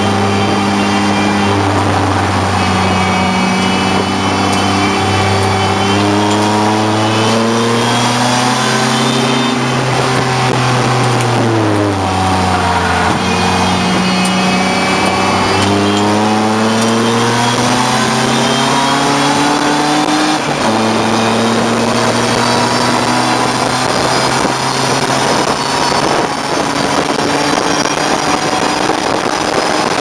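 BMW E34 race car's engine at racing speed, heard from inside the stripped cabin. Its pitch climbs steadily, falls smoothly as the car slows about eleven to thirteen seconds in, then climbs again, with a sudden step down at a gearshift about twenty seconds in.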